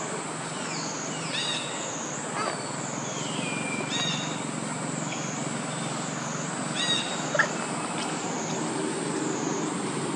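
Outdoor ambience under trees: a high, even insect drone that swells and fades about once a second over a steady low hum. Several short high chirps or squeaks come through it, a few gliding downward.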